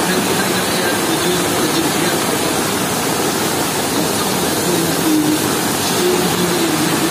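Flooded river rushing over rocks in white-water rapids: a loud, steady rush of water that does not change.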